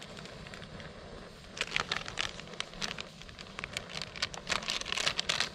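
Plastic packet crinkling and rustling as it is handled, a quick irregular run of sharp crackles starting about a second and a half in.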